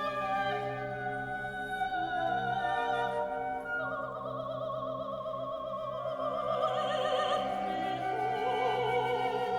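Background music: a classical piece with an operatic voice holding long notes with a wide vibrato over an orchestral accompaniment.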